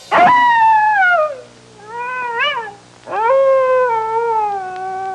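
A cat meowing three times: a drawn-out falling meow, a shorter one that rises and falls, then a long meow that slowly falls away.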